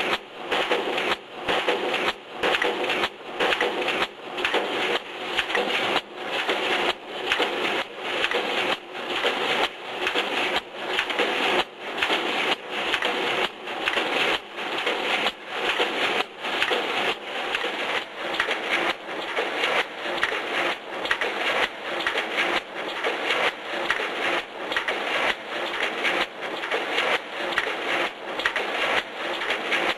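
Automatic wire mesh welding machine running in production, its repeating work cycle heard as a steady rhythm of sharp mechanical clacks, about one and a half a second.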